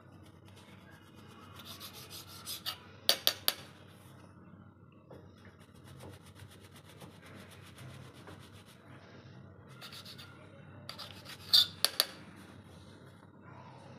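Kitchen knife sawing through the crusts of stacked bread slices, a scratchy rasping in repeated strokes. Twice, about three seconds in and near the end, the blade cuts through and strikes the marble slab with quick clusters of three sharp taps, the loudest sounds.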